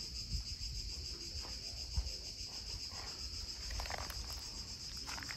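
Insects chirring in a steady, high-pitched pulsing drone, with a low rumble underneath and a soft thump about two seconds in.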